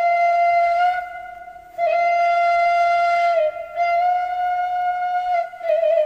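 Background music: a flute playing slow, long held notes, with a short pause about a second in.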